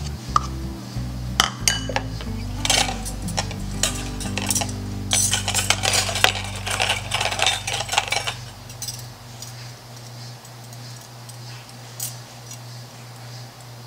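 Hand mixer beaters clinking and clattering against a mixing bowl while creaming butter. The clatter is thick for about seven seconds, then thins out. Background music plays throughout.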